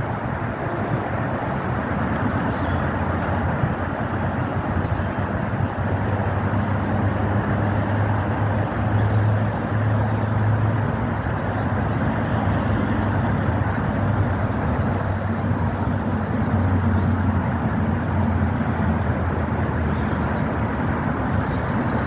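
Steady outdoor rumble with a low droning hum that strengthens a few seconds in and eases near the end.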